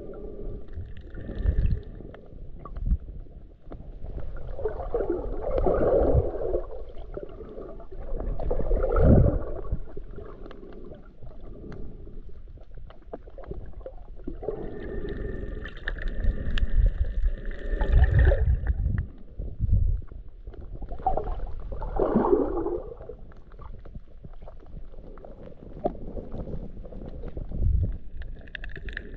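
Muffled underwater noise picked up by a submerged GoPro: water moving against the camera and a low rumble, with several louder swells of sound.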